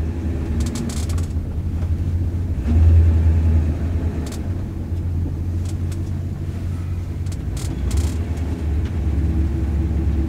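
1959 Plymouth Fury's V8 engine heard from inside the cabin as the car drives off, a steady low rumble that swells about three seconds in as it pulls away. A few short sharp clicks come through now and then.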